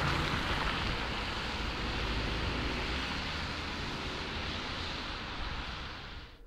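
Steady hiss of car tyres on a wet, slushy road mixed with wind noise, easing slightly, then cutting off abruptly near the end.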